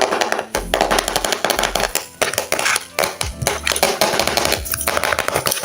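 Plastic packaging crinkling and rustling in quick, crackly bursts as it is handled.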